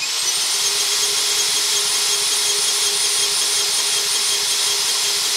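Cordless drill used as a starter, spinning a Briggs & Stratton lawnmower engine over with a steady high whine; the engine does not catch.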